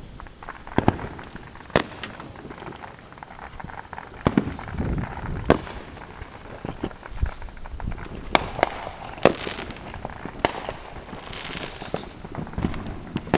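Consumer fireworks going off: a string of irregular sharp cracks and pops, about a dozen over the stretch, with a hissing crackle in the later part.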